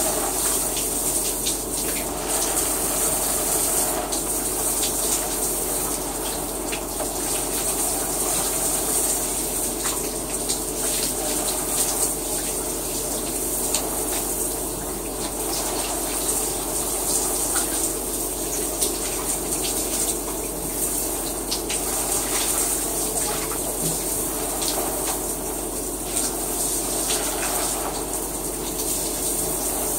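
Shower running: a steady rush of water spraying and splashing, with small irregular splashes and drips.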